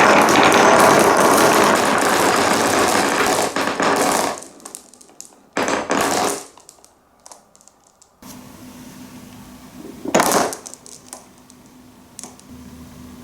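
Marbles rolling and clattering along a wooden marble run: a loud, continuous rattle for about four seconds, then shorter runs. There is a brief loud clatter about ten seconds in.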